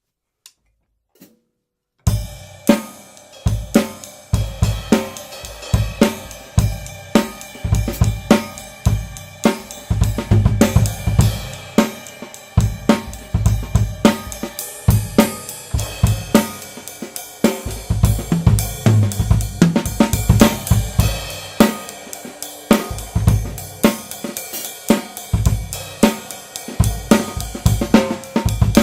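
Tama Swingstar drum kit with Meinl cymbals, recorded on a Blue Yeti microphone. After two faint taps, a steady groove of bass drum, snare, hi-hat and cymbals starts about two seconds in and keeps going.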